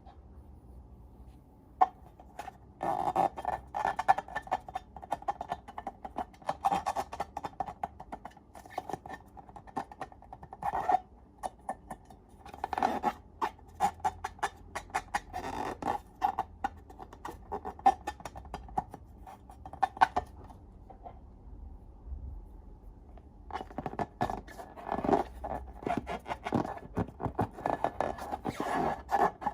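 Slime being squeezed and pressed by hand, giving irregular sticky clicks and crackling pops in uneven clusters, with a pause about two-thirds of the way through.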